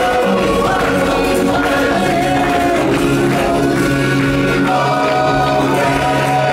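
Music with singing voices, sustained notes over a steady bass.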